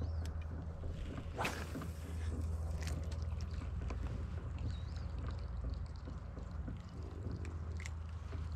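A hooked largemouth bass being played to a jon boat: a steady low rumble with scattered small clicks and knocks, and a short splash about a second and a half in.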